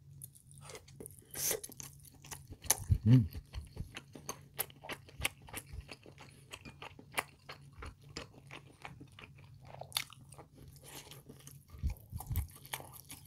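Close-miked chewing of fatty pork from kimchi stew: many short wet clicks and smacks of the mouth, with a brief low hum about three seconds in.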